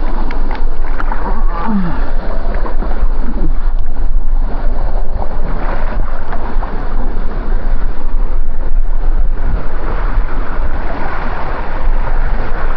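Loud, steady rush of water with a deep rumble, and a few splashes about a second in.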